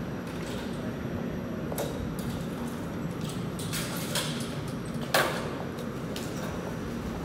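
TTC Flexity Outlook streetcar standing at the platform, a steady hum running under scattered clicks and knocks, the loudest a sharp clank about five seconds in.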